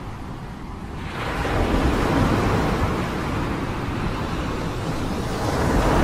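Rushing, rumbling roar of a muddy debris flow pouring down a slope, dipping at first and swelling about a second in.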